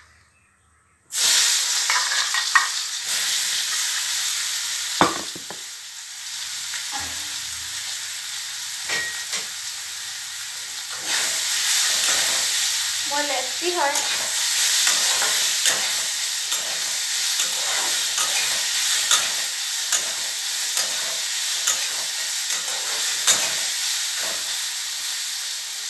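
Boiled soya chunks rubbed with salt and turmeric frying in hot oil: a loud sizzle that starts suddenly about a second in, eases a little after about five seconds and builds again later, with clicks and scrapes of stirring throughout.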